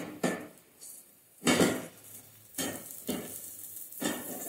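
A non-stick pot knocking and scraping against the metal grate of a gas stove as it is shifted by its handle, in about five short clatters spread across a few seconds.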